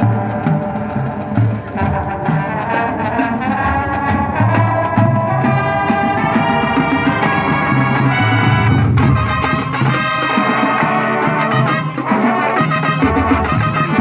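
A high school marching band playing its field show: full brass, with sousaphones, sounding held chords and melody over drums and front-ensemble percussion.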